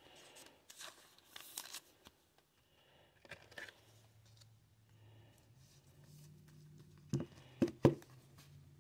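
A trading card being sleeved: light crinkling and scratching of a thin plastic penny sleeve, then the sleeved card sliding into a rigid plastic top loader. Three sharp plastic taps come in quick succession near the end, over a faint low hum.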